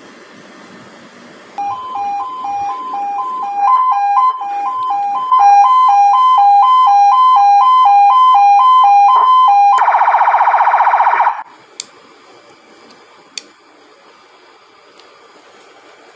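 Repaired police vehicle siren unit tested through its speaker: a loud siren alternating between two tones, growing louder over its first few seconds, then switching to a rapid warble for about a second and a half before cutting off. A couple of faint clicks follow.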